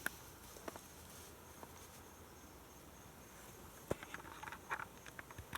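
Insects chirping faintly in a steady pulsing high-pitched trill, with a few soft clicks and rustles, most of them near the end.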